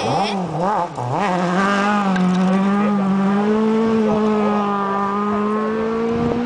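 Mk2 Ford Escort rally car's engine as it slides through a gravel corner. The revs rise and fall quickly for about the first second, then the engine holds one strong note whose pitch climbs slowly as the car pulls away under power.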